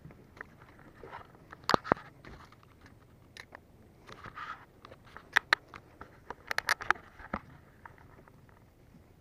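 Scattered sharp clicks and knocks of fishing gear being handled on a small wooden boat: a pair about two seconds in, another pair a little past halfway, and a quick cluster of several soon after, over a faint low background.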